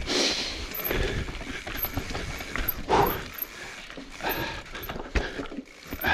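Evil Wreckoning LB mountain bike rolling slowly down a rocky trail: tyres crunching over rock and dirt, with irregular knocks and rattles from the bike as it drops over rocks.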